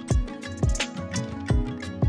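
Background music with a steady beat of deep kick drums and sustained melodic tones.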